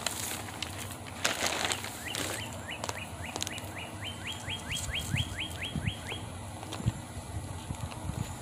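A bird singing a run of about eighteen quick rising notes, some four a second. A few short noisy bursts come before the run, and a few low thuds come later.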